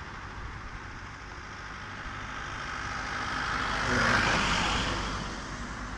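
A motor vehicle passing close by on the road, its engine and tyre noise growing to a peak about four seconds in and then fading.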